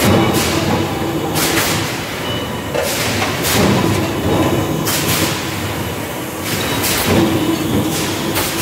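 Hot-forging machinery in a bearing-ring forge, presses and a ring-rolling mill working red-hot steel rings, running as a steady clatter. Sharp bangs and hisses come through it at uneven intervals, about a dozen, often in quick pairs.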